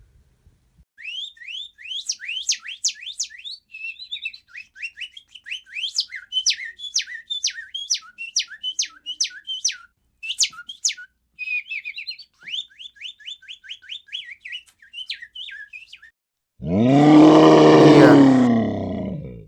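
A rapid run of high, downward-sweeping chirps, several a second, for about fifteen seconds, then a loud animal roar near the end that falls in pitch.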